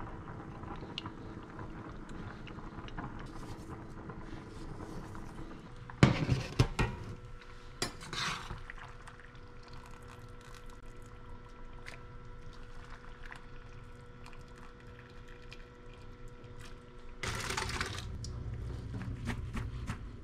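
Pasta water boiling in a steel pot, then metal clanks and rushes of draining water as the pasta is lifted out in a strainer insert, with another splash of water near the end. A faint steady hum sits underneath once the clatter starts.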